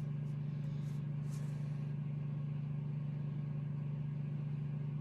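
A steady low hum, unchanged throughout, with a few faint soft rustles of baby clothes in the first second or so.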